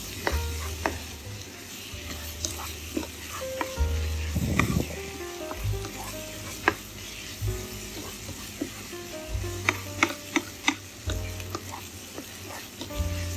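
Tofu scramble sizzling in a hot nonstick pan while a spatula stirs and scrapes it, with sharp clicks of the spatula against the pan, several close together about ten seconds in.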